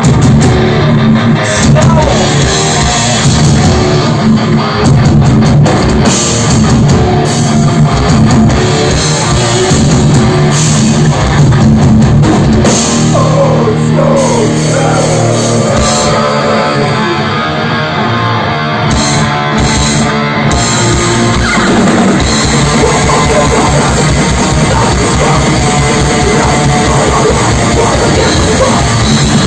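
Hardcore punk band playing live and loud: distorted electric guitar, bass and a drum kit, starting up suddenly right at the beginning.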